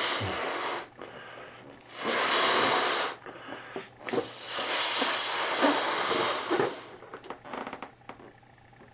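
Breath blown into a latex balloon to inflate it: several long, breathy blows, the last lasting about three seconds, then a few faint ticks near the end.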